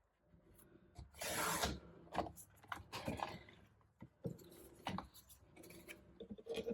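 Paper trimmer slicing through heavy cardstock, with a sharp hissing cut about a second in and a softer one near three seconds, among clicks and taps of the paper and trimmer being handled.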